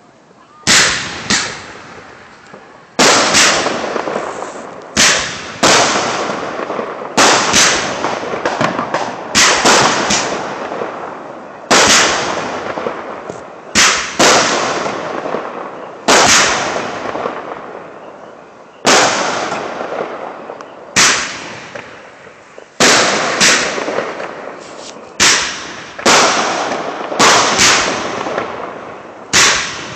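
Aerial firework shells bursting one after another, a sharp bang about every two seconds, each trailing off over a second or more.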